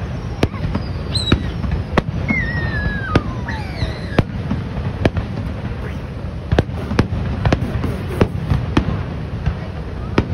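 Fireworks display: aerial shells bursting in a string of sharp bangs, about one or two a second, over a steady low rumble. A falling whistle sounds about two seconds in.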